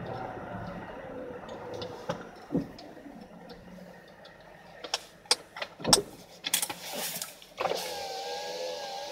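Inside a car's cabin, the car slows to a stop, its running note falling and fading. A few sharp clicks and knocks follow. Then, about two-thirds of the way in, a power-window motor starts and whirs steadily, its pitch wavering slightly.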